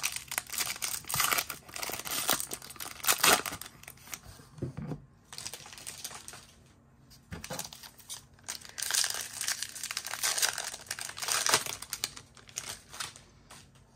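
Foil wrappers of Topps baseball card packs being torn open and crinkled by hand, in crackly bursts with a quieter stretch in the middle.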